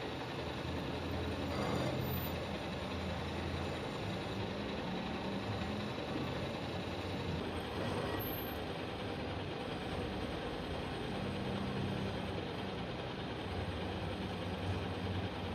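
A machine running steadily: a continuous low hum with a noisy hiss over it.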